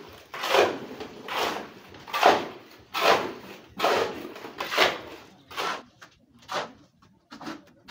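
Hand tool scraping across a wet concrete floor in repeated strokes, a bit under one a second, growing fainter near the end.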